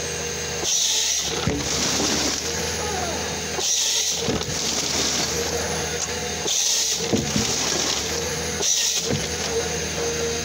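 Komatsu 901XC harvester running steadily with its C93 harvester head at work on an aspen stem. Four hissing bursts, each about a second long, come every two to three seconds as the head cross-cuts the stem into short logs.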